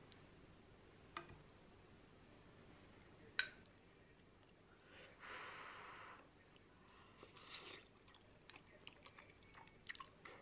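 Quiet eating sounds: a few light clicks of chopsticks against the dishes, the sharpest about three seconds in, and a second or so of chewing about five seconds in.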